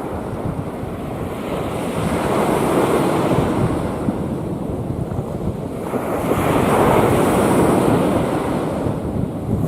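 Rough sea waves surging and breaking, swelling twice, about two seconds in and again about six seconds in, with wind buffeting the microphone.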